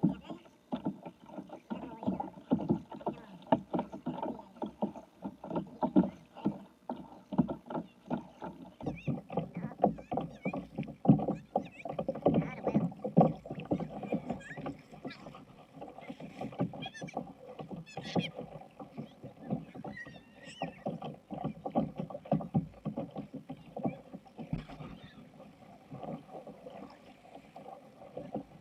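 A sit-on-top kayak being paddled with a double-bladed paddle: water splashing from the strokes and slapping against the hull in many short, irregular knocks. Faint voices of swimmers come through now and then.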